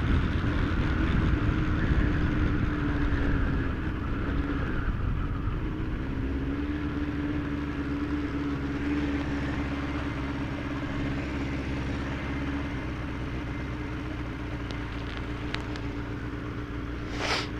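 Motorcycle engine running at a steady cruise with wind rushing around the helmet, picked up by a microphone inside the helmet under a latex-glove wind cover; the engine note eases slightly as it goes. A short sharp noise comes near the end.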